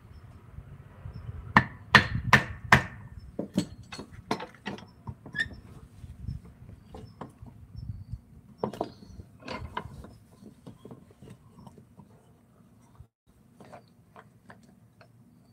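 Sharp knocks of a tool striking wood: four hard blows in quick succession, then lighter, irregular taps that thin out toward the end, typical of woodcarving work.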